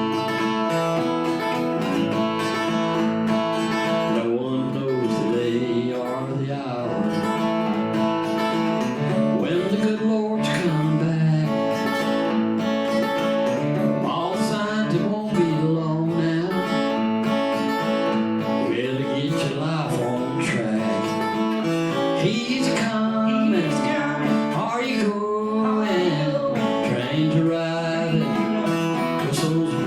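Acoustic guitar playing a bluegrass gospel tune.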